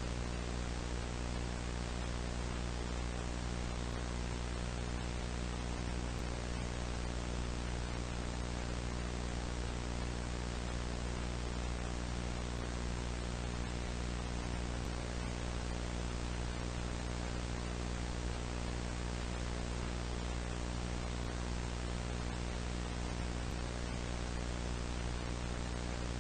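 Steady static hiss with a low electrical hum and its overtones underneath, unchanging throughout, like the noise of a blank video tape or a detuned TV.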